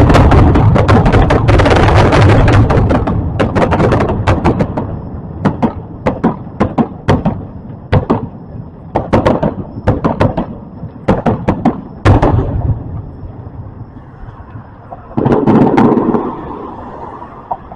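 Fireworks going off: a dense run of bangs and crackling at first, then a string of separate sharp cracks and pops, with louder bursts near the end.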